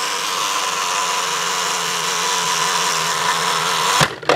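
Fat Brain SpillAgain Tower's ball cup set spinning by pressing down its top: a steady plastic whirr with the lightweight balls rattling inside. It cuts off with a sharp clack near the end as the balls start to spill.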